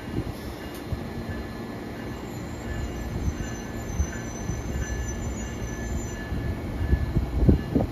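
Amtrak passenger train's stainless-steel Amfleet coaches rolling past close by: a steady wheel-on-rail rumble with irregular low thumps, a faint high wheel squeal in the middle, and a cluster of heavier thumps near the end.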